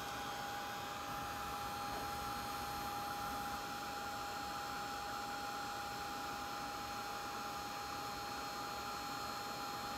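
Handheld Ranger craft heat gun running steadily, a constant motor whine over the rush of its fan's air, aimed at a clay piece to cure it.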